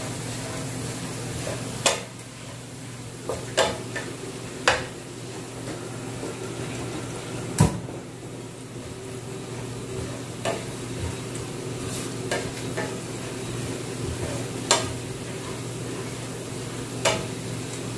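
Minced garlic and chili sizzling in oil in a nonstick frying pan while a wooden spatula stirs them, knocking sharply against the pan about a dozen times, the loudest knock about midway through.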